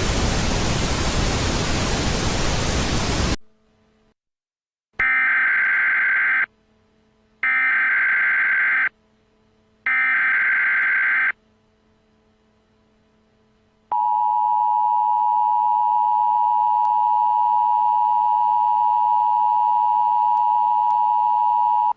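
A burst of white-noise static that cuts off about three seconds in. After a pause come three short bursts of Emergency Alert System SAME header data tones, each about a second and a half long with gaps between them. After another pause the steady two-tone EAS attention signal begins and holds.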